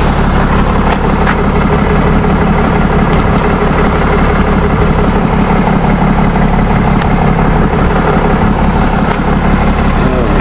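Tow truck's engine idling steadily close by.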